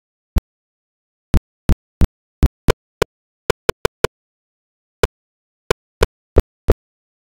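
A broken-up audio track: about fifteen very short blips, irregularly spaced and each cut off abruptly, with dead silence between them.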